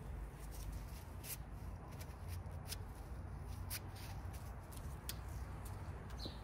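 Quiet outdoor background: a steady low rumble with a dozen or so faint, scattered small clicks.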